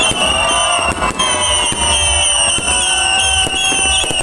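Fireworks going off continuously: a rapid run of short, slightly falling whistles, about two or three a second, mixed with sharp crackling pops over a low rumble.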